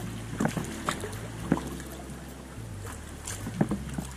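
Kayak paddle strokes splashing and dripping in calm water, several distinct splashes, over soft background music with slowly changing low notes.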